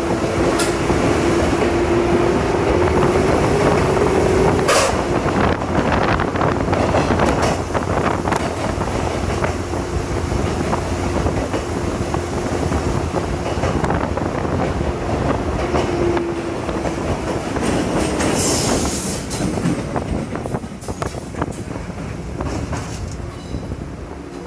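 Line breaker of a JR 185-series electric train's motor car snapping open and shut several times in the first ten seconds or so, sharp clunks that ring out in a tunnel over the loud, steady running noise of the train. The running noise goes quieter over the last few seconds as the train leaves the tunnel.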